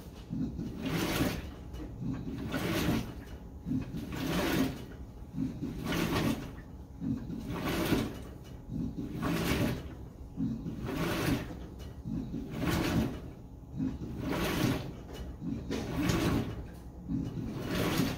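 GE GTW720 high-efficiency top-load washer agitating a load of pillows, bedding and clothes. Water and laundry swish in a regular rhythm, about one swish every 1.7 seconds, as the wash action churns the load back and forth.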